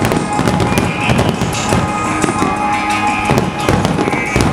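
Aerial firework shells bursting, with many sharp bangs and crackles in quick succession, over the music of the pyromusical.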